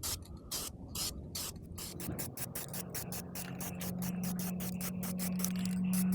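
Aerosol spray paint can being shaken, its mixing ball rattling in a quick run of clicks that speed up. A steady low hum grows in from about halfway.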